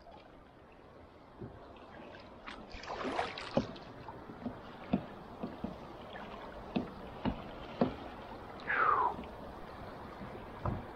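Kayak paddling across moving current: a run of sharp paddle knocks and splashes at uneven intervals, with running water underneath. A short falling squeak about nine seconds in.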